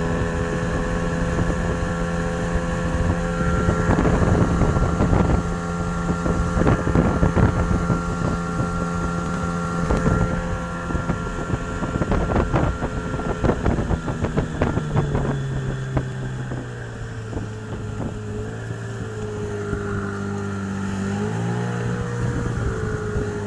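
Golfstream (Parsun) T8 two-stroke 8 hp outboard motor running steadily under way while being run in, with irregular knocks and splashes of water against the boat between about 4 and 13 seconds in. About 15 seconds in the engine note drops to a lower pitch as it slows, then rises slightly near the end.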